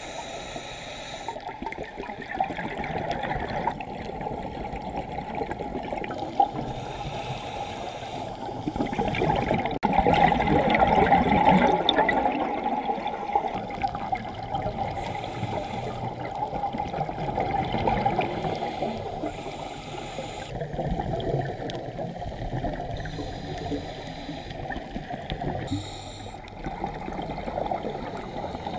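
Muffled underwater sound recorded by a diver's camera: steady bubbling, gurgling water noise, with a short hiss coming back every few seconds from a scuba regulator as the diver breathes.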